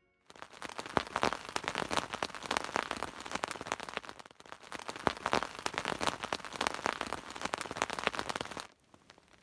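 Rain falling, a dense patter of many small drops. It drops away sharply about a second before the end, leaving only a faint patter.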